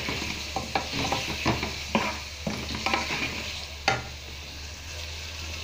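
Diced potatoes sizzling as they fry in oil and spice paste in a metal pot, with a wooden spoon scraping and knocking against the pot as they are stirred; one sharper knock comes about four seconds in. The potatoes are being fried (bhuna) to cook off the raw taste of the ginger-garlic and spices.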